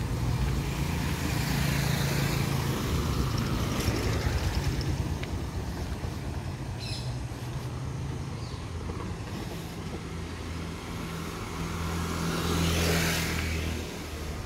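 Road traffic: a motor vehicle engine hums steadily, and a vehicle passes close by near the end.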